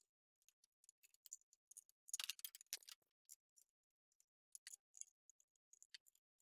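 Faint, irregular small clicks and light taps of hand tools and metal parts as the lathe's splash guard mount is worked into place on its aluminium riser block, with a short denser patch of clatter about two seconds in.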